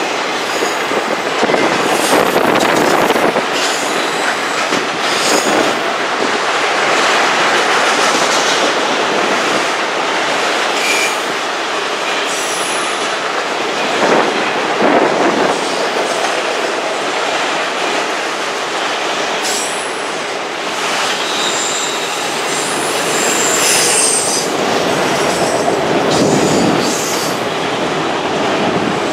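Freight train of autorack cars rolling slowly around a curve: steady wheel-on-rail rumble and clatter, with short high-pitched flange squeals coming and going from the wheels grinding through the curve.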